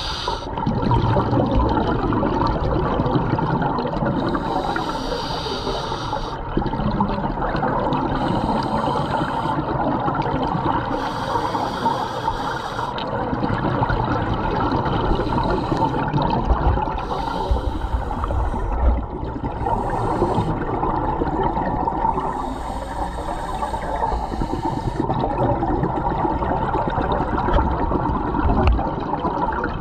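Scuba diver breathing through a regulator underwater: a breath cycle every few seconds, each with a hiss and a rush of exhaled bubbles, over a steady bubbling water noise.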